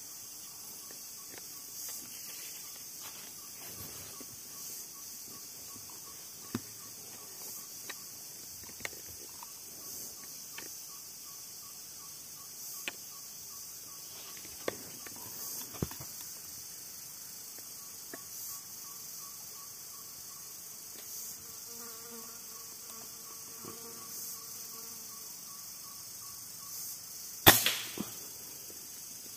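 Forest insects chirring steadily in high-pitched tones, with a few faint scattered clicks. Near the end, a single sharp shot from a PCP air rifle.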